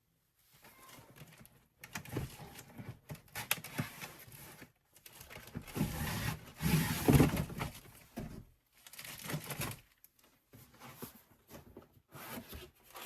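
Irregular rustling and crinkling of things being handled, loudest about two-thirds of the way through.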